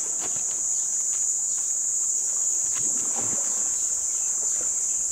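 Steady, high-pitched chorus of insects in the bush, with faint scattered clicks beneath it.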